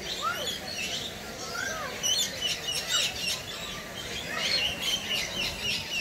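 A chorus of many small birds chirping, with short, quick, overlapping calls that grow busier from about two seconds in.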